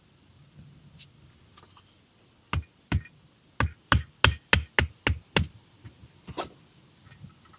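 A run of sharp knocks: two about half a second apart, then a quick, even series of seven at about three a second, and one more a second later.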